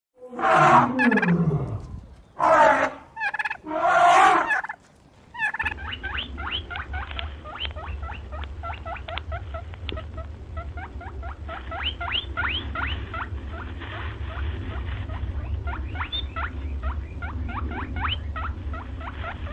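Several loud animal calls, the first falling in pitch, then from about five seconds in a flock of birds chirping rapidly over a low steady hum.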